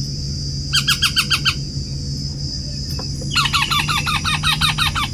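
Parrot calling in two bursts of rapid, evenly repeated harsh squawks, a short one about a second in and a longer one from about three seconds in.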